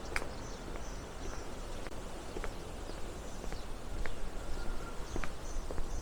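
Steps clicking on a paved street about once every half second to second, with faint birds chirping high above a low background hum.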